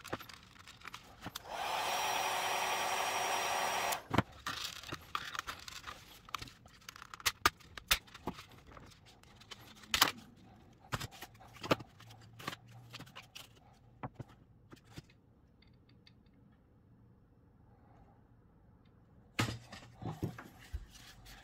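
A heat gun blows steadily for about two and a half seconds near the start, warming the glue that holds a plastic air vent in a car dash fascia. It is followed by scattered sharp plastic clicks, snaps and scraping as the vent is pried and worked loose by hand, with a cluster of knocks near the end.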